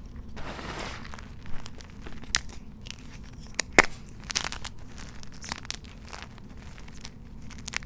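Blocks of dyed gym chalk being crushed and crumbled by hand: irregular crunches and crackles, with one sharp, loud snap about four seconds in.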